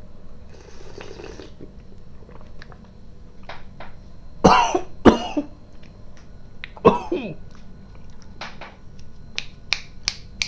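A man coughs hard three times, at about four and a half, five and seven seconds, each cough a harsh voiced burst falling in pitch, after slurping a sip of Carolina Reaper–spiced broth from the bowl. The coughing comes from the chili heat catching his throat. Short clicks from the mouth follow near the end.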